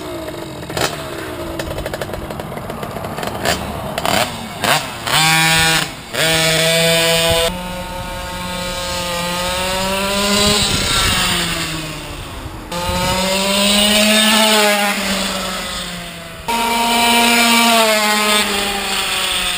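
Franco Morini 50cc two-stroke engine on a motorized bicycle, idling unevenly at first, then revving up sharply about five seconds in. It then runs at high revs in long rising and falling surges as the bike is ridden away down the street and back past.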